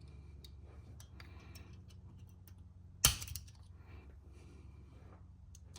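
Automatic center punch firing once with a sharp metallic snap about three seconds in, amid a few faint clicks of metal on metal. Each strike punches into the top snap ring of a 6.0 Power Stroke injector to deform it so it can be pried out.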